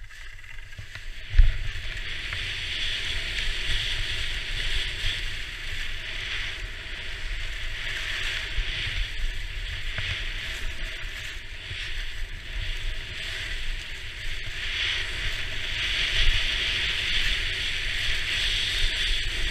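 Skis sliding and scraping down a packed snow slope, a steady hiss that swells and fades with each turn, with wind rumbling on the body-mounted camera's microphone. A single thump about a second and a half in.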